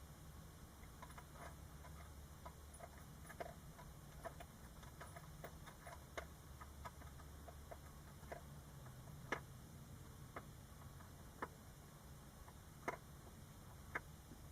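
Near silence: a low steady hum with faint, irregular small clicks scattered through it, a few slightly sharper ones in the second half.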